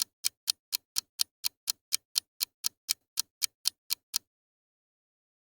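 Clock-ticking sound effect: a fast, even run of sharp ticks, about four a second, that stops about four seconds in.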